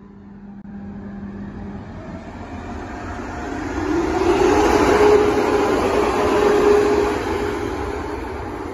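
Electric Amtrak Acela Express trainset, first generation, moving past at a station platform. Its running noise builds to a peak about halfway through, with a steady hum, then eases off.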